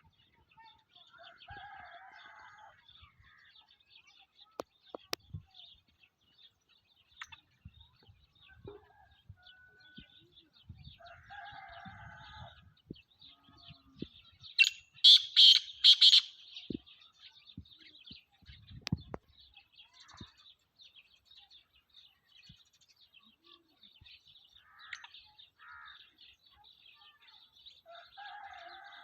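Black francolin calling: one loud run of about six harsh, grating notes about halfway through. A steady high chirring runs underneath.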